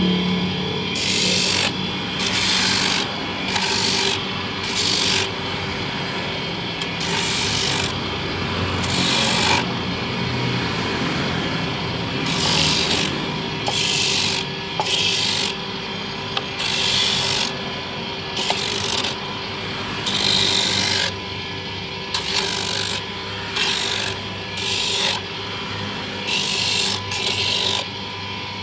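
Electric coconut grater running with a steady motor hum while coconut halves are pressed against its spinning toothed head. This gives short, irregular rasping scrapes roughly once a second.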